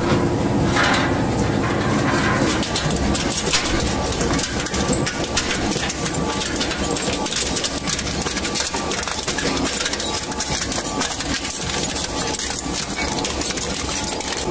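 Twin-shaft shredder's hooked cutter discs chewing up a blue-painted steel spoked wheel: a continuous run of metal crunching and grinding, thick with sharp clanks as the steel bars are bent and torn.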